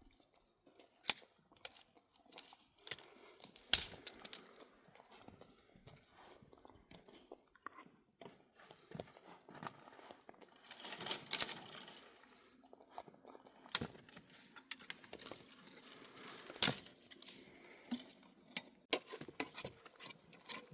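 A steady, high-pitched, rapidly pulsing insect trill runs on throughout. A few sharp knocks stand out over it, and there is a brief rustle about halfway through.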